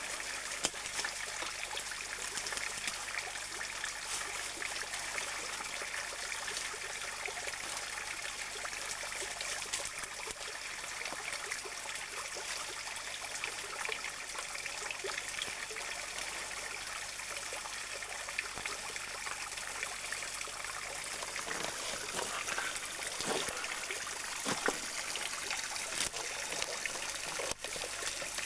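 Creek water trickling and splashing over stones below a small cascade: a steady, even rushing.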